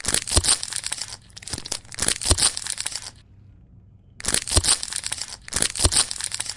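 Crinkling and tearing with many sharp clicks, in two bursts: one for about three seconds, then, after a short pause, another for about two seconds.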